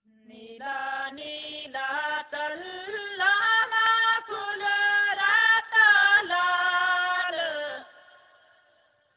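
A shepherd's song: one unaccompanied voice singing a slow, drawn-out melody in held notes that slide between pitches, phrase after phrase with short breaths between. It fades away near the end.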